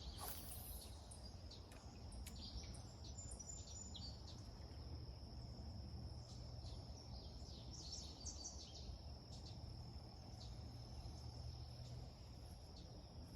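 Creekside ambience: a steady high insect trill with scattered bird chirps over a low rumble. A brief hiss sounds at the very start.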